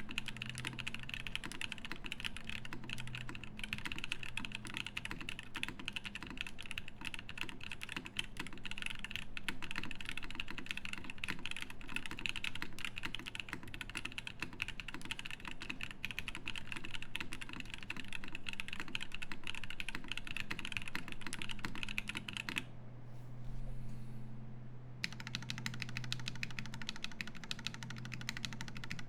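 Continuous fast typing on a Keycult No.2/65 mechanical keyboard with an aluminium plate and lubed, filmed Husky switches under GMK keycaps, a dense run of keystroke clacks. The typing stops for about two seconds roughly three-quarters of the way through, then carries on.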